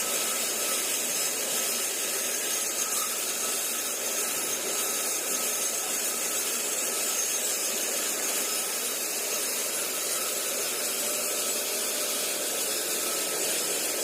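Horizontal band saw machine running steadily, its motor and blade making a constant mechanical drone.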